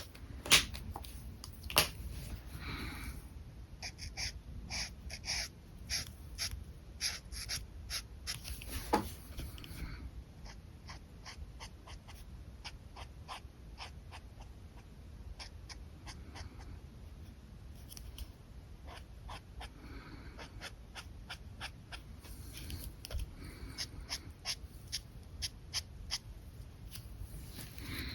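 Alcohol markers working on paper: rubbing strokes and frequent sharp clicks and taps, busiest and loudest in the first ten seconds.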